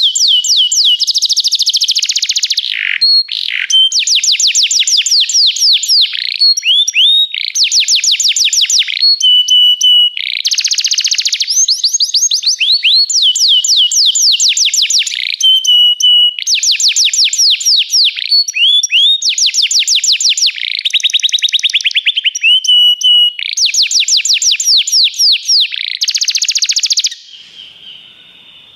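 Belgian canary singing a long song of rapid trills, fast runs of repeated falling notes alternating with held whistled notes, changing phrase every second or two. The song stops abruptly near the end, leaving only faint chirping.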